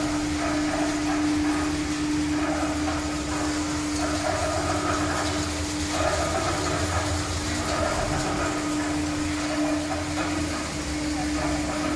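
Octagonal drum seasoning machine running: a steady electric motor hum, with fried potato chips tumbling and rustling inside the turning drum in swells about every second.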